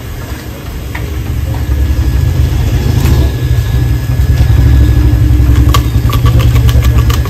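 An engine running, a loud low rumble that swells over the first couple of seconds and then holds steady.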